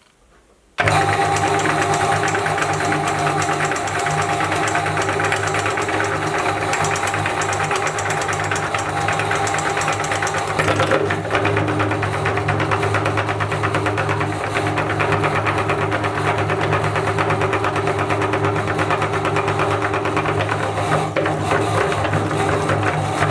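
Electric meat grinder switched on about a second in, its motor running steadily with a fast rattling, grinding texture as it feeds stuffed teddy toys through. The tone shifts slightly about halfway through.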